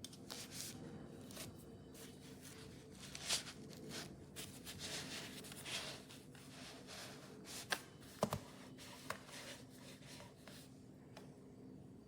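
Faint rustling and scattered light clicks of something being handled, over a steady low hum; a few sharper clicks come about two-thirds of the way through.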